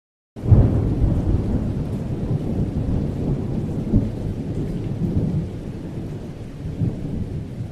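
Low, rough rumbling noise that cuts in abruptly and slowly fades.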